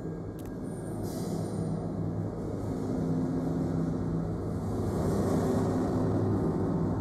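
Low ambient drone of several held tones that shift slowly, with a faint click about half a second in and a brief hiss about a second in.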